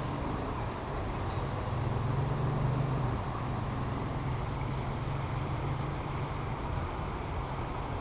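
Steady rumble of road traffic, swelling briefly about two to three seconds in as if a vehicle passes.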